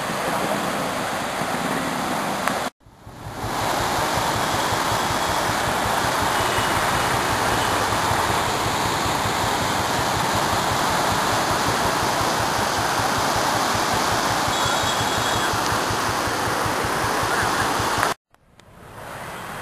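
Floodwater of a river in spate rushing loudly past a bridge, a steady noise of churning water. It drops out briefly twice, about three seconds in and near the end.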